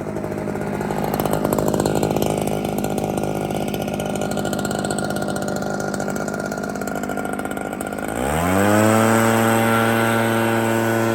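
Echo PB-9010 backpack blower's two-stroke engine running with a rush of air, then revving up sharply about eight seconds in and holding at high speed.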